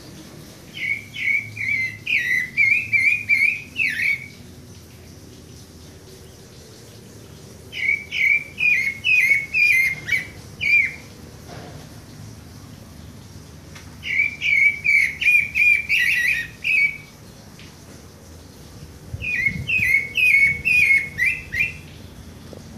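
Pale-breasted thrush (sabiá-barranqueira) singing four phrases of quick, repeated whistled notes. Each phrase lasts about three seconds, and they are spaced about three seconds apart.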